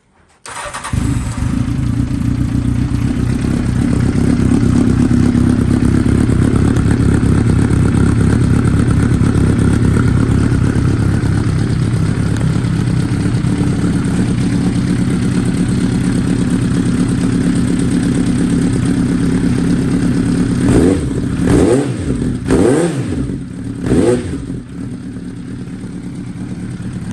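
Honda CB1000SF's inline-four engine firing up through an aftermarket Wyvan exhaust with an Onishi silencer, then idling steadily. About twenty seconds in the throttle is blipped four times in quick succession, each rev rising and falling, before the engine settles back to a slightly lower idle.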